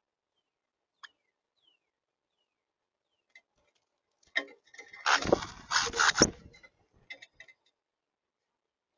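A bird feeder clattering and scraping for about two seconds as something moves on it, loudest near the middle, with a few faint clicks before and after.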